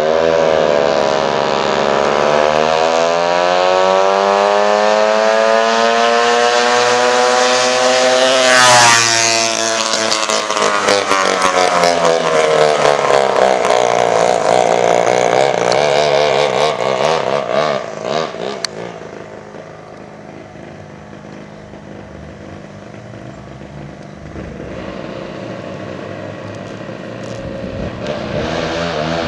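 Go-kart with twin two-stroke Homelite chainsaw engines running at speed and passing by. The engine note climbs in pitch as it approaches, is loudest about nine seconds in, then drops in pitch and fades as it moves away, before growing louder again near the end.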